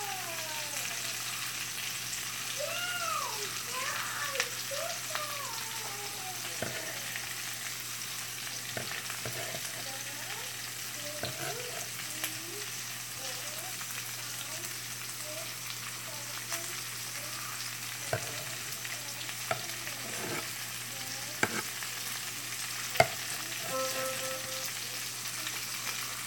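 Diced potatoes, onions, jalapeños and bell peppers sizzling steadily as they fry in a pan. Now and then a sharp tap of a knife on a wooden cutting board as sausage is sliced, and a short tone sounds near the end.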